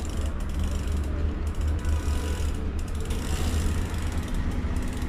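Mechanical ratcheting clicks, like a pawl-and-ratchet mechanism, over a steady low rumble.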